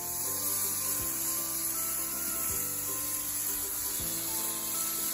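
Cheerful background music with held notes changing every second or so, over a steady high hiss.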